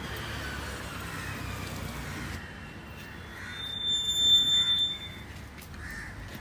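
A steady high-pitched electronic beep, held for about a second and a half midway, over a low rumble of street traffic.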